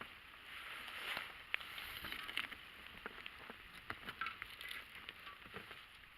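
Handling noise in a small inflatable boat: scattered light clicks and knocks over a steady hiss.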